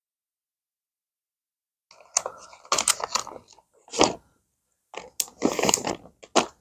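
Plastic lure packaging crinkling and rustling as it is handled, in several short, irregular bursts starting about two seconds in.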